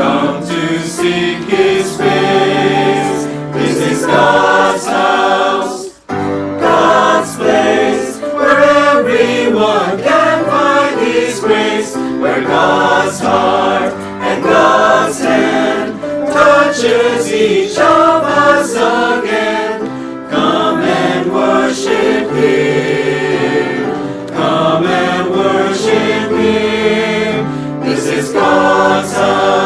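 Church choir singing an anthem; the sound drops out for a moment about six seconds in, then the singing resumes.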